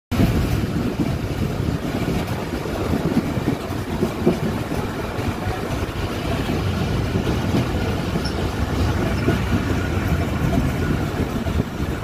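A moving train's running noise: a steady low rumble from the wheels on the rails, with irregular rattles and knocks.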